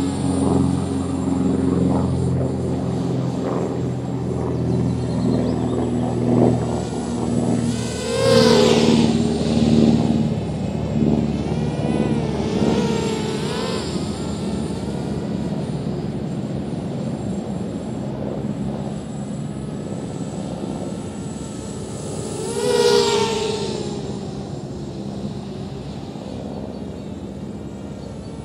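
Small FPV racing quadcopter's motors and propellers buzzing as it flies around, the pitch wavering up and down with the throttle. It swells loudly as it passes close about 8 seconds in and again about 23 seconds in.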